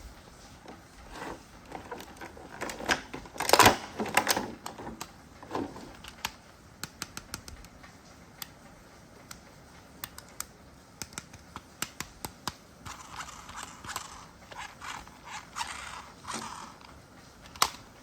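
Irregular light clicks and taps with a few short scraping noises, the loudest cluster about four seconds in and a quicker run of clicks near the end.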